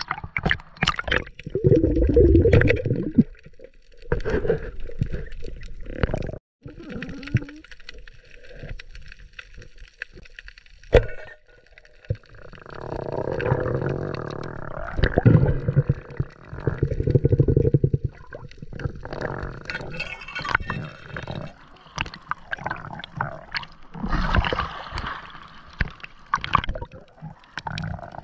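Underwater sound of a night dive picked up by the diver's camera: water gurgling and sloshing in uneven swells, with scattered clicks and knocks.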